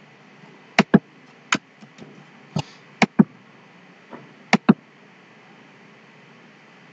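Computer keyboard keystrokes and mouse clicks: about eight short, sharp taps scattered over the first five seconds, some in quick pairs, as a line of code is typed and the program is compiled.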